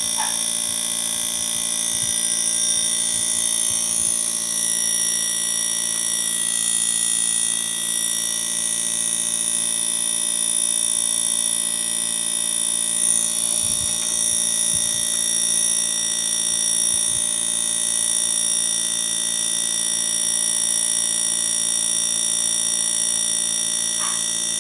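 Koppel 1 HP split inverter air conditioner running on test after repair of its E1 indoor–outdoor communication fault, with a steady high-pitched electronic whine and hum.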